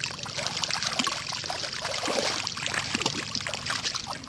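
Water trickling and splashing in a steady patter of small splashes, loudest about halfway through.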